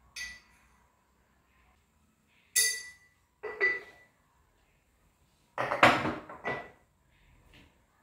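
Kitchenware clinking and knocking: a sharp clink near the start, two ringing clinks around the middle, then a louder clatter of several knocks about two-thirds of the way through.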